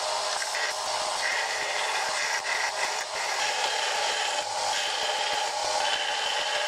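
Belt grinder running with a steel hammer head pressed against the belt, grinding in several short passes with sparks. The grinding whine rises and falls in pitch as the pressure changes, with brief dips where the head is lifted off the belt.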